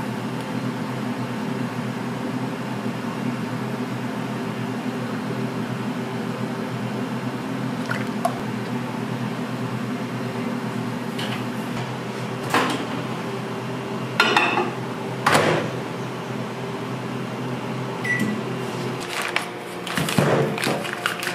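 Microwave oven running with a steady hum, with a few knocks partway through. A short beep sounds near the end, followed by clattering.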